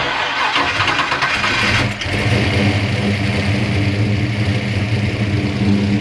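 Freshly built 429-cubic-inch small-block Ford V8 with Boss 429-style hemi heads and twin Holley Dominator carburetors firing up and revving for about two seconds, then settling into a steady idle. The engine is running on its dyno tune only, not yet tuned for the street.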